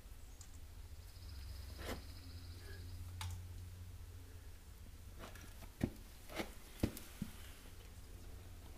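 Quiet barn ambience: a steady low hum with a handful of faint, short clicks and taps, the sharpest about six and seven seconds in.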